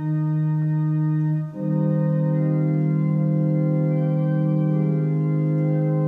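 Church organ playing slow, sustained chords, with a brief break and a change of chord about a second and a half in.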